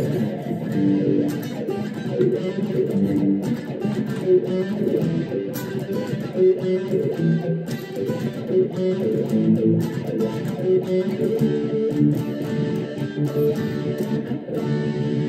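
Electric guitar played through the Donner Vowel volume-and-wah pedal into a small practice amp, with the foot on the pedal's treadle. It plays a continuous run of single notes and short phrases.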